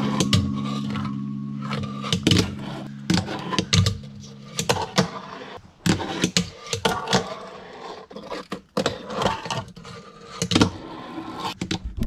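Fingerboard tricks on a wooden tabletop: a string of sharp clacks as the small board is popped and lands, with wheels rolling on the wood between them. Background music runs under the first four seconds or so, then stops.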